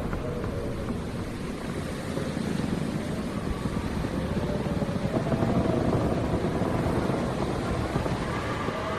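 Howling wind: a steady rushing rumble with a faint whistling tone that slowly wavers up and down.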